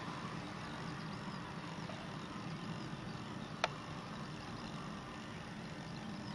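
Steady outdoor background rumble, with faint high chirps and a single sharp click about three and a half seconds in.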